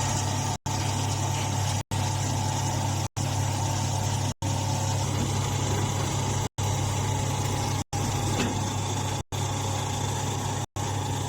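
Portable rice straw baler's engine running steadily with a deep hum, cut by brief dropouts to silence about every second and a quarter.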